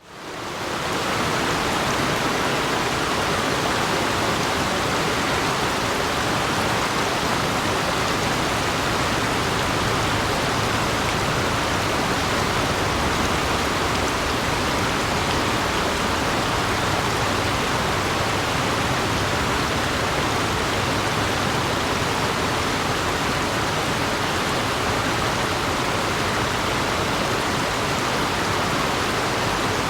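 River water rushing steadily, an even wash of noise that fades in over the first second.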